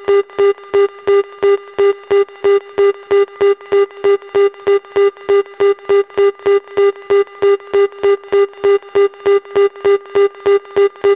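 Electronic music made of one pitched beep repeating steadily about three times a second, the same tone and rhythm throughout.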